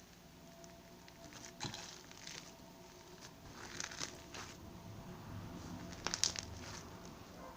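Slime being handled close to the microphone: soft irregular clicks, crackles and small pops as it is pressed and pulled, with a louder cluster of pops about six seconds in.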